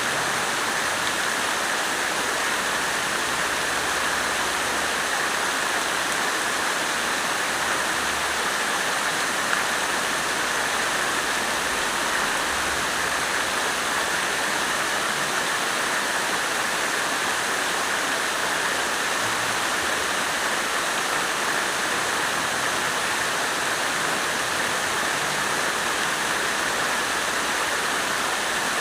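Water fountain running, with a steady, unbroken splashing of falling water.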